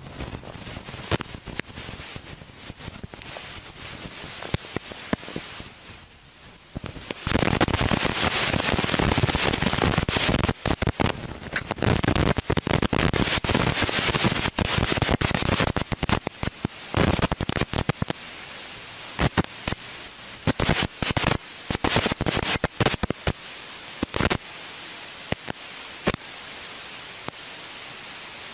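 Crackling static noise full of sharp clicks. It turns much louder and denser about seven seconds in, then comes and goes in bursts.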